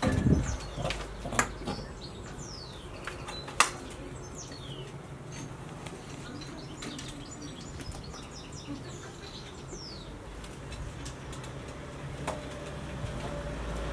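A few sharp taps and knocks in the first few seconds, the loudest about three and a half seconds in, as a rabbit's feet and claws strike the glass tank and glass shelf it is hopping on. Birds chirp in the background with short falling calls over a steady low hum.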